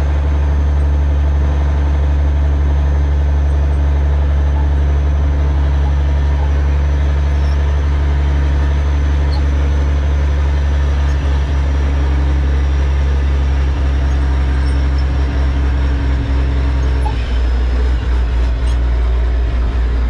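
1989 Mack R600 dump truck's diesel engine running steadily as the truck drives, heard from inside the cab. The engine note shifts about three seconds before the end.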